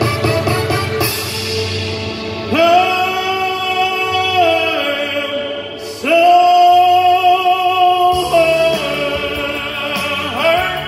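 A male singer belting two long held notes over a recorded backing track through a PA system, then shorter sung phrases near the end.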